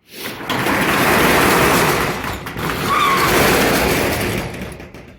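Metal door of a storage locker being pulled shut: a continuous loud clatter lasting about four seconds and fading near the end, with a short squeal about three seconds in.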